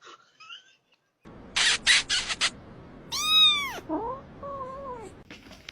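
A cat hisses in several short bursts, then lets out one loud yowl that rises and falls in pitch, followed by a lower, wavering meow.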